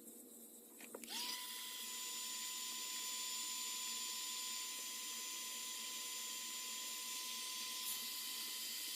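A small electric power tool's motor spins up about a second in, its whine rising quickly to a steady high pitch, then runs at constant speed with a hiss.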